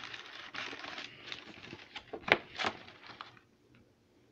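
Paper food packaging rustling and crinkling as a snack is pulled out of it, with one sharp click a little after halfway; it goes quiet near the end.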